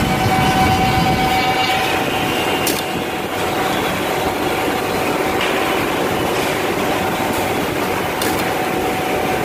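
Woodmaster two-table oval mortising machine running, giving a steady tone over a dense mechanical rattle. Two short sharp sounds come about three seconds in and again near the end.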